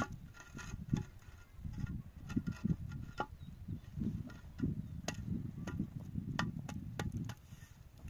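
A concrete block being shifted and pressed into place on a wet mortar bed: gritty scraping and rubbing, with a run of sharp little knocks and clicks about five to seven seconds in.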